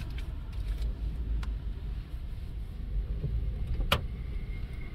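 Steady low rumble of a car heard from inside the cabin, with one sharp click about four seconds in.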